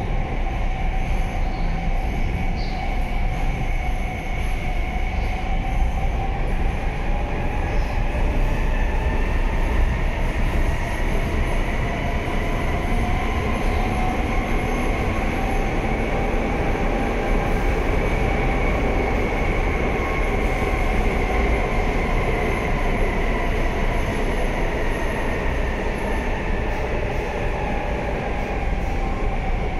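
Madrid Metro 5000-series (4th subseries, CAF) electric metro car running along the tunnel, heard from inside the car: a steady rumble of wheels on rail under a high whine that drifts slowly up and down in pitch.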